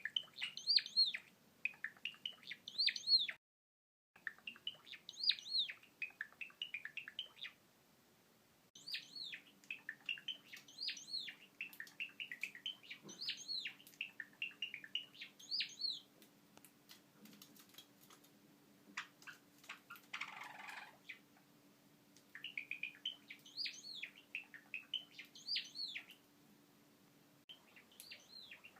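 Java sparrow singing: several song phrases of quick chirping and clicking notes, each ending in arching whistled notes, repeated with pauses between them. A brief noisy sound breaks in about two-thirds of the way through.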